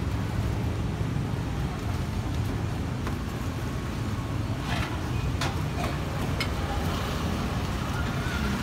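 A steady low rumble, with a few short metallic clicks and scrapes of a metal spatula on a steel griddle in the middle.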